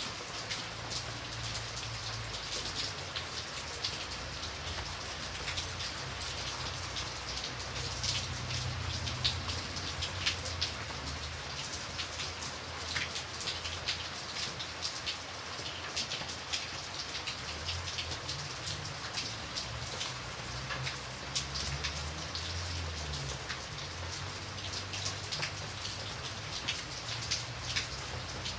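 Steady rain with many close raindrops pattering and tapping on a surface, and a faint low rumble underneath that comes and goes.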